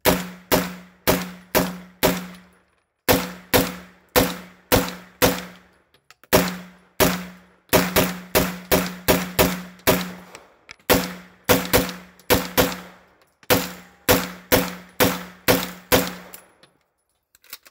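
PTR 9CT, a semi-automatic 9mm MP5-clone pistol, firing shot after shot, about 35 rounds in five quick strings with short pauses between them. Each shot is a sharp crack that rings on in the indoor range bay.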